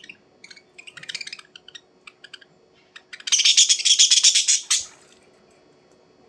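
A small bird chirping: scattered short high chirps, then a loud run of rapid chirps lasting about a second and a half just past the middle, stopping suddenly.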